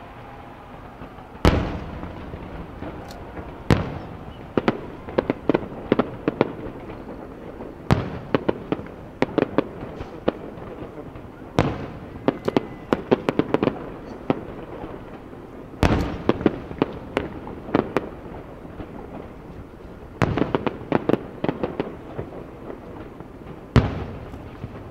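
Aerial firework shells bursting: about seven heavy booms a few seconds apart, with quick strings of smaller sharp cracks between them.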